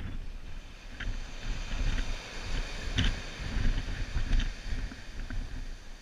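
Wind buffeting the microphone over the steady wash of surf breaking and running up a beach, with a few short knocks, the clearest about three seconds in.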